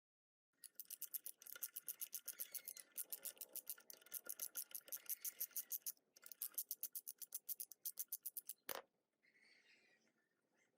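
Rapid back-and-forth hand scraping strokes on a metal gearbox part, about five a second, like filing or wire-brushing off rust and grime. The strokes pause briefly about six seconds in and stop with a single sharp knock near the end.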